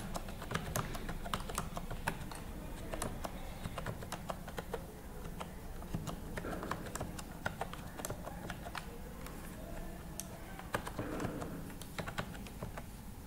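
Typing on a computer keyboard: irregular key clicks as numbers and Enter are keyed into a spreadsheet, over a steady low hum.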